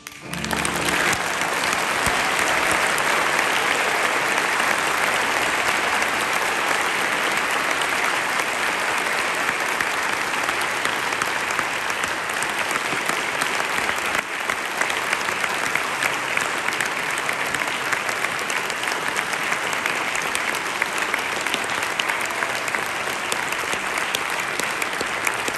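Audience applauding: many hands clapping, swelling within the first second and then holding steady.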